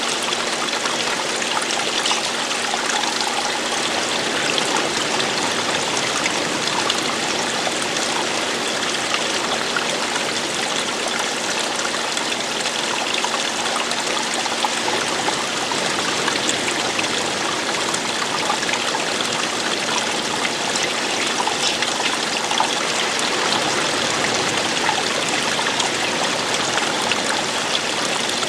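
Steady running water of a stream, babbling and trickling without a break.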